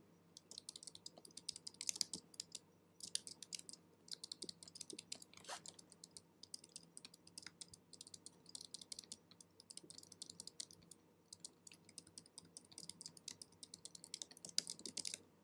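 Faint, irregular clicking and tapping from a computer keyboard and a pen stylus on a drawing tablet, in short clustered runs.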